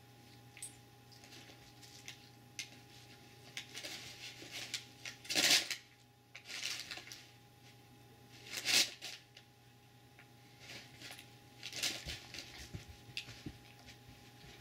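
A Doberman nosing and pushing at a cat on a carpet strewn with crumpled paper: soft scuffling and rustling over a faint steady hum, with three short, louder rushes of noise about five and a half, nine and twelve seconds in.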